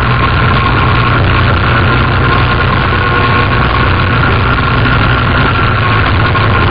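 Quad bike (ATV) engine running at a steady, unchanging pace, heard from on board while riding, with a steady whine above the low engine note.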